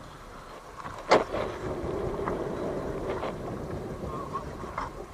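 Steady wind and water noise on a small fishing boat, with one sharp knock about a second in.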